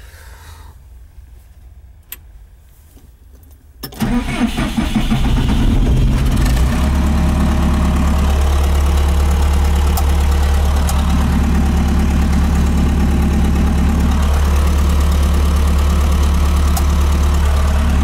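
A click, then about four seconds in the Trackless MT5's engine starts and settles into a steady idle, heard from inside the cab.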